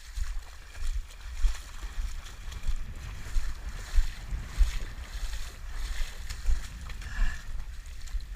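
A fast river rushing past, with repeated splashing as legs wade through the current. A low rumble of wind buffets the microphone.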